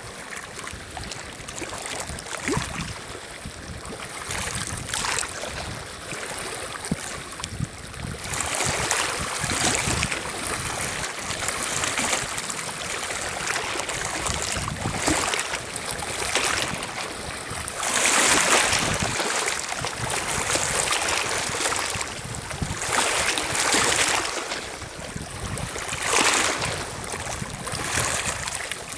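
Small lake waves lapping and washing over a pebble shore, swelling and falling back every two or three seconds, with the strongest surges about eight, eighteen and twenty-six seconds in.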